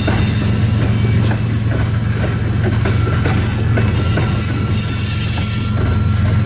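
Oil-train tank cars rolling past close by: a steady low rumble with irregular clicks and clatter from the wheels and a thin, faint wheel squeal in the middle.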